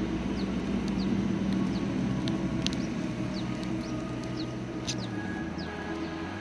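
A car engine idling with a steady low hum, with short high bird chirps scattered over it.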